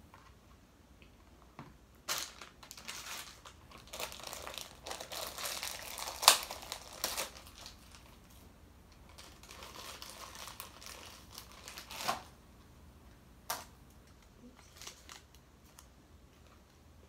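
Crinkly craft materials, a plastic packet and metallic tinsel, rustling in bursts as they are handled, with a few sharp clicks.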